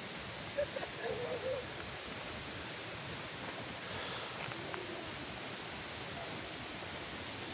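Steady rush of falling water from a waterfall, an even hiss, with a brief faint voice about a second in.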